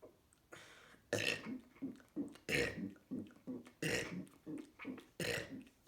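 A person burping over and over in quick succession: short, low burps about three a second, broken by a louder, longer burst roughly every second and a half, four times.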